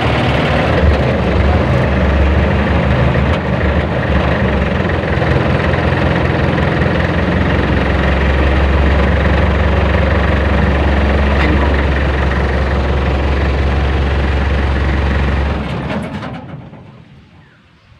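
Jeepney engine idling steadily while running on a temporary jumper-wire bypass of its broken ignition switch. About sixteen seconds in it shuts off and dies away.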